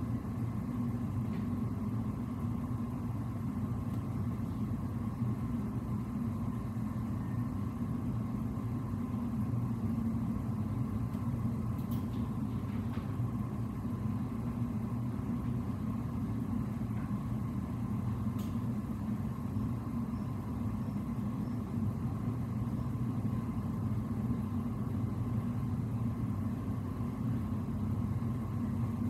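Steady low machinery hum of a ship under way heard on its enclosed bridge, the engine and ventilation drone carrying through the hull, with a faint steady whine above it. A couple of faint clicks about halfway through.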